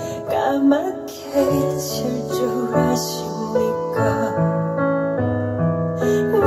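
Female-vocal ballad playing from a vinyl LP over home hi-fi speakers: a sung line trails off in the first second, then piano chords and a bass line carry on.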